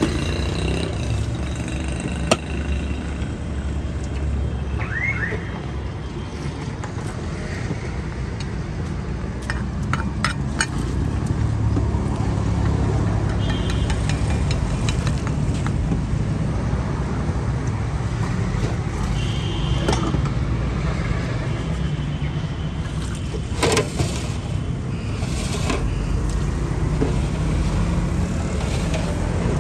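Steady rumble of road traffic, with a few sharp metallic clinks of a steel ladle against steel bowls.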